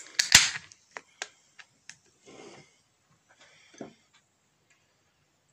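An aluminium beer can being opened and handled. A loud sharp crack with a short hiss comes near the start, then several light clicks and soft knocks.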